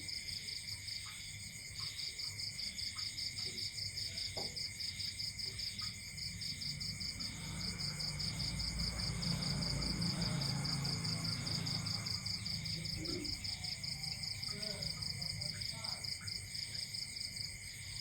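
Insects chirring steadily in fast, even pulses at several high pitches. A low rumble swells up through the middle and fades again.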